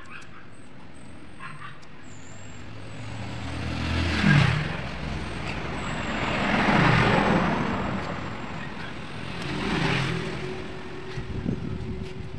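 Passing road traffic: three vehicles go by one after another, each a swell of noise that rises and fades over a couple of seconds. A few light clicks come near the end.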